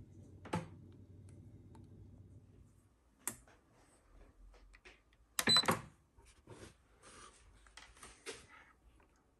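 Scattered clicks and knocks from handling an Instant Pot Pro Crisp multicooker at its control panel, with a louder clatter about halfway through that has a brief high tone in it, then a few faint clicks.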